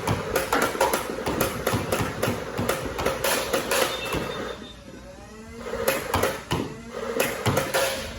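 Two bursts of rapid clattering from a Nerf Rival blaster firing foam balls at an electronic moving target, the first about four and a half seconds long, the second shorter near the end, over a steady motor hum. Between the bursts a motor whirs, dipping and rising in pitch.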